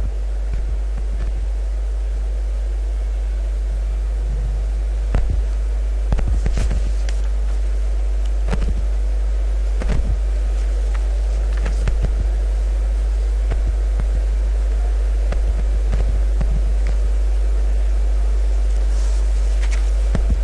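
Loud, deep, steady electrical hum in the sound system, with a few faint scattered clicks and knocks.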